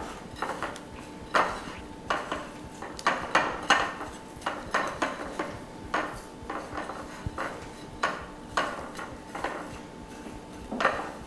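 Breadcrumbs being pressed onto raw chicken tenders by hand on a glass plate: irregular short scrapes and rustles of crumbs and fingers against the glass, about one or two a second.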